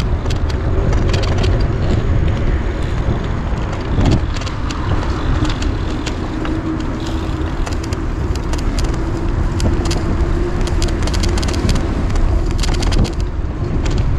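Wind rushing over the microphone and tyre rumble from a loaded touring bicycle riding a paved bike path, with frequent light clicks and rattles from the bike. A faint steady hum comes in around the middle.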